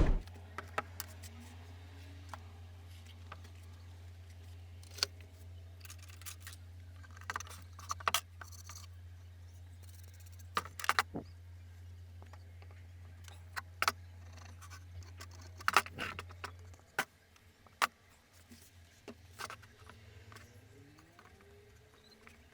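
Scattered metallic clinks, taps and light scrapes, the sound of parts and tools being handled during hand work on an old tool. A steady low hum runs beneath them and stops about three-quarters of the way through.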